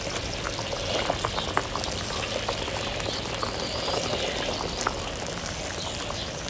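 Soy sauce cooking liquid bubbling steadily in a wok around a whole chicken, with many small pops.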